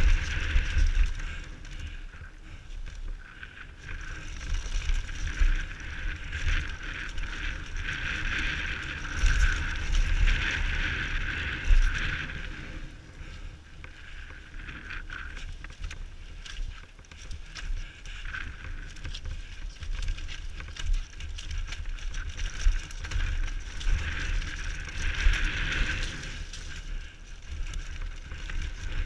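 A downhill mountain bike rattling and knocking over a rough dirt trail at speed, with wind buffeting the helmet camera's microphone in a rumble that swells and drops.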